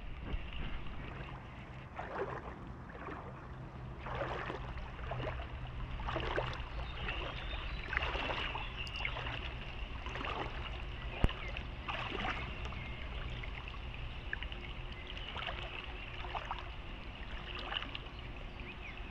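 Flood-swollen river water rushing and splashing, with small high chirps running steadily over it and a single sharp click about eleven seconds in.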